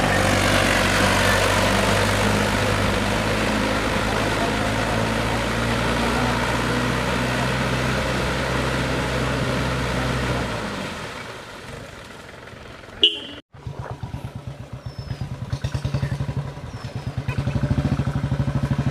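Motorcycle engine running while riding, with road and wind noise, easing off about ten seconds in. After a brief click and dropout, the engine putters at low speed in a quick, even pulse that grows louder toward the end.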